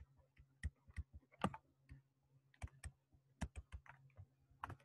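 Stylus pen tapping and clicking on a tablet's writing surface during handwriting, an irregular run of sharp clicks, over a faint steady low hum.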